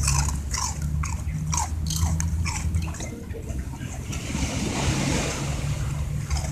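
Dog chewing and smacking its lips on sticky food, short wet clicks about twice a second, as the food sticks to the roof of its mouth. About four seconds in, a rush of wind on the microphone covers it, over a low steady hum.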